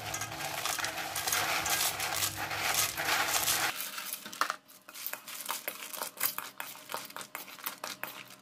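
Dry chocolate-coated cereal flakes rustling and pattering as they are tipped from a plastic bowl into a steel bowl of melted chocolate. From about four seconds in, the sound thins to scattered light clicks and scrapes as the cereal is mixed into the chocolate.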